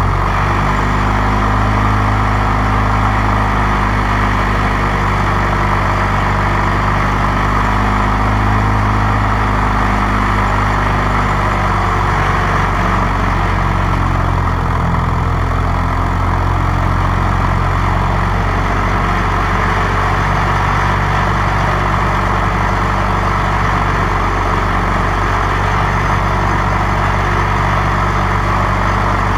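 1947 Caterpillar D7 crawler tractor's engine running steadily at low speed after a cold start in sub-zero temperatures. About twelve seconds in, a little of its higher, tonal content drops away while the low running note carries on unchanged.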